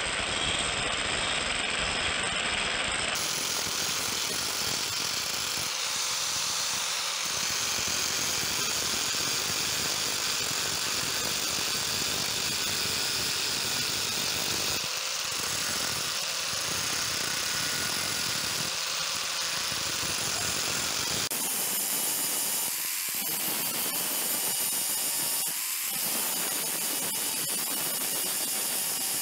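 Angle grinder running steadily, its disc grinding the edge of a stainless steel blade with a continuous grinding noise and a faint high whine.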